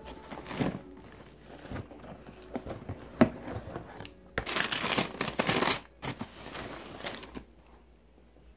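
Cardboard shoebox being handled and opened, with tissue paper rustling and crinkling in irregular bursts, the longest rustle about halfway through. A single sharp tap comes a little after three seconds.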